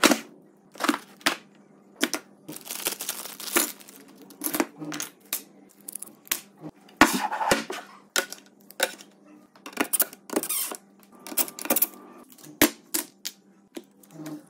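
Quick, irregular clicks, knocks and scrapes of hands handling drawer parts on a workbench, with a faint steady hum underneath.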